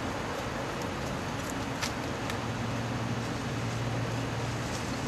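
Small three-bladed wind turbine spinning fast in gusty wind: a steady hum that grows stronger about halfway through, over a wash of wind noise, with a couple of faint ticks.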